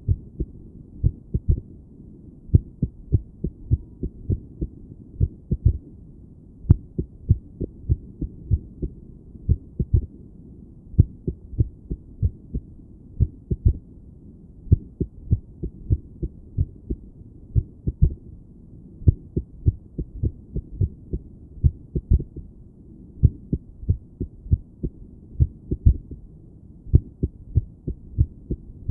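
A woman's heartbeat heard through a stethoscope on her chest: low, paired lub-dub thumps that come at an uneven, irregular rhythm, with some beats bunched close together and others followed by longer gaps.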